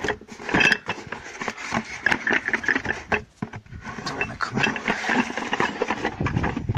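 Cardboard box being handled and opened close to the microphone: irregular scraping and rustling of the flaps, with many small knocks and clicks.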